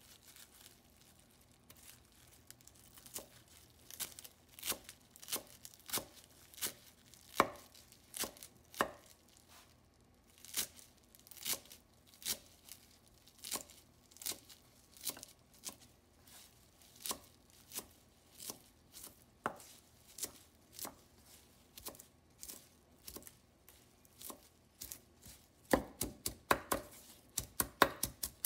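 Large kitchen knife chopping fresh cilantro on a wooden cutting board: spaced strokes at about one and a half a second, quickening near the end into rapid chopping at several strokes a second.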